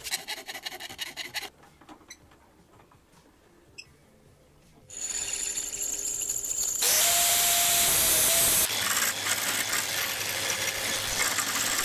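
A hand file rasping back and forth on a steel piece in a vise for about a second and a half, then a pause. From about five seconds in, a pillar drill bores through a steel plate, growing louder with a held whine, then a jigsaw runs, cutting the steel plate.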